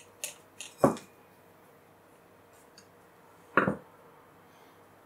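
Plastic clicks and knocks from a Fujitsu Siemens LifeBook E8010 laptop being handled during reassembly: a quick run of small clicks at the start, a louder knock about a second in, and another knock of two or three close hits about three and a half seconds in.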